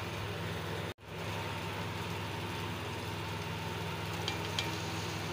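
Steady low mechanical hum with an even hiss, cut off for an instant about a second in.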